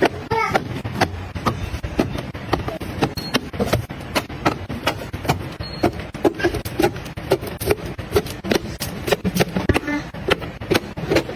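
Objects being handled and set down: a quick, irregular run of sharp clicks and taps, several a second.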